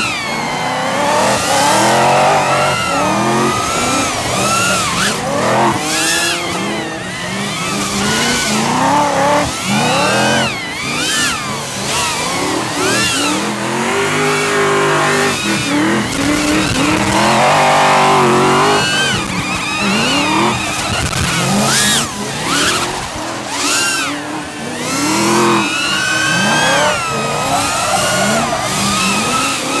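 Drift cars running hard: engines revving up and down repeatedly with tyres squealing and skidding. A clear, steadily rising rev comes about halfway through.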